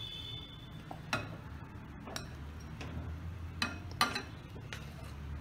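A steel ladle clinking against the pan and a glass bowl as kheer is served: about six separate clinks, the loudest about four seconds in, with a brief metallic ring at the very start.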